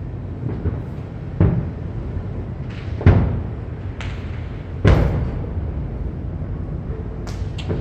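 Aerial fireworks shells bursting in loud booms, three big ones about a second and a half apart, each trailing a low rumble, with lighter cracks in between.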